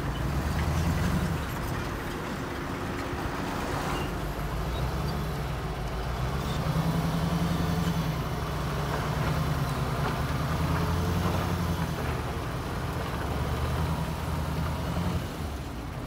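Heavy diesel engine of earthmoving machinery running under load, its note swelling and easing several times and dropping back shortly before the end.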